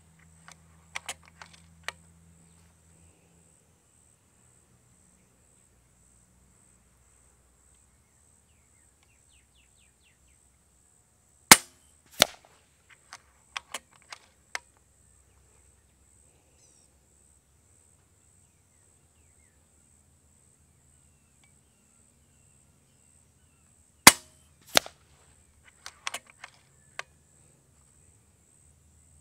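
FX Dreamline .22 regulated PCP air rifle firing twice, about 12 seconds apart. Each shot is followed about half a second later by a second sharp crack, then a few light clicks as the action is cycled for the next pellet. A faint steady high tone runs underneath.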